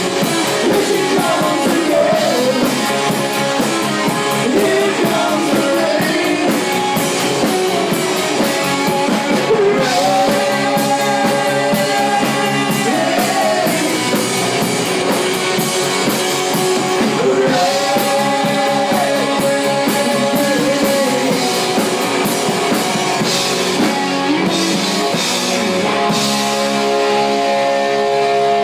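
Live rock band playing: Telecaster-style electric guitar, electric bass and drum kit, with melody lines that bend in pitch. Near the end the band settles onto one long held, ringing chord.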